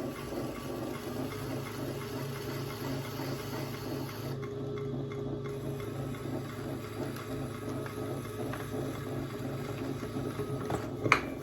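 Electric pottery wheel running with a steady hum while a trimming tool scrapes excess clay from the bottom of a spinning leather-hard bird-feeder base. A single sharp knock near the end.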